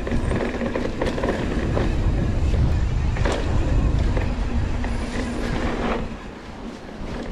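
Mountain bike rolling along a dirt trail: a steady rumble of wind on the microphone and tyre noise, with several sharp clattering knocks as the bike goes over bumps. It eases off a little near the end.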